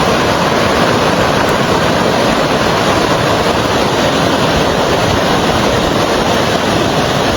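Steady, loud rushing of fast-flowing floodwater.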